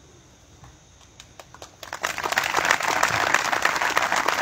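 A small crowd applauding. A few scattered claps come about a second in, then steady applause from about two seconds in.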